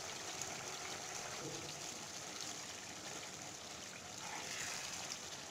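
Chicken curry gravy simmering in a pan, bubbling steadily as it cooks down on high heat.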